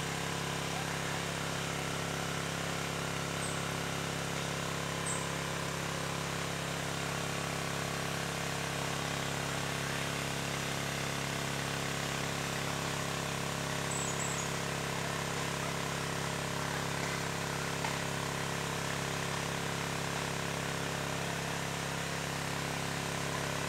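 A steady hum of several low tones over an even hiss, unchanging throughout, with a few faint high chirps.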